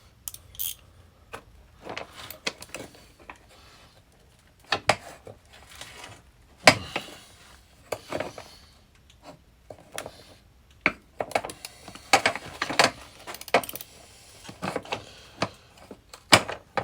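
Metal hand tools clicking and clinking as a ratchet wrench and sockets are worked on seized headlight-cage bolts. The sounds come in irregular bursts, with a sharp knock about seven seconds in and a busier stretch of clatter near the end.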